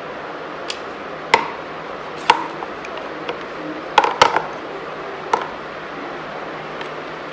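Several sharp clicks and knocks of a hand tool and hand working metal fittings while the battery wiring on a motorcycle is disconnected, the loudest a quick pair about four seconds in.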